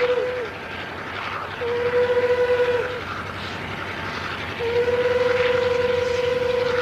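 A train horn sounds one steady note in blasts over the rumble of running railroad machinery: one blast ends about half a second in, a second lasts about a second, and a long blast starts about two-thirds of the way through. Each blast sags in pitch as it cuts off.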